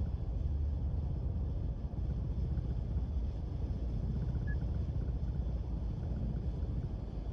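A moving Subaru car with a steady low rumble of road and running noise.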